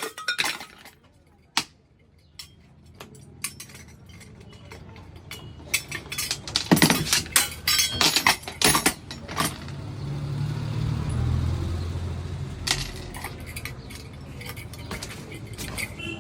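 Metal clinks, taps and knocks from a pressure cooker being worked on during a repair, sharp and irregular, thickest about seven to nine seconds in. From about ten seconds in a steady low rumble sits underneath, with a few more knocks.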